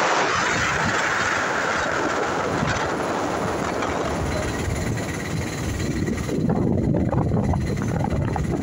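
Auto-rickshaw running along a wet road, its engine and the wind and road noise making a steady din. A hiss fades over the first few seconds, and a deeper rumble takes over about six seconds in.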